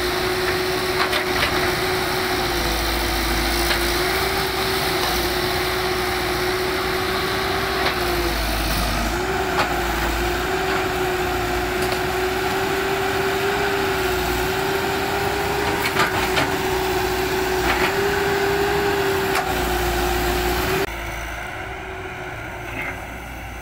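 Caterpillar 312B excavator's diesel engine running with a steady, slightly wavering whine, with a few sharp cracks of wood. Near the end the sound drops abruptly to a quieter engine.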